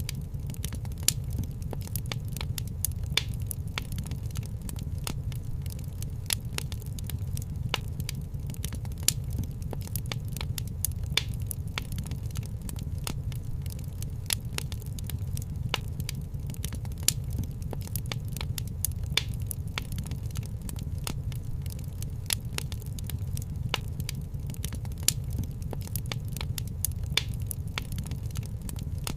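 Fireplace fire crackling: irregular sharp pops and snaps over a steady low rumble of flames.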